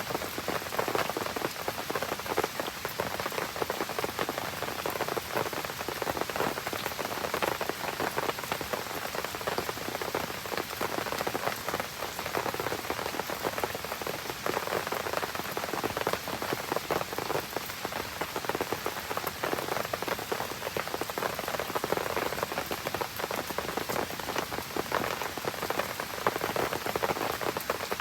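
Steady rain pattering on surfaces: a dense, even patter of drops.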